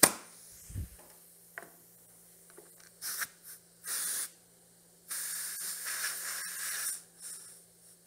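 Compressed air hissing in bursts from an air-hose chuck at a motorcycle's front tyre valve, filling an underinflated tyre. A sharp click at the start, short bursts around three and four seconds in, then a longer burst of nearly two seconds.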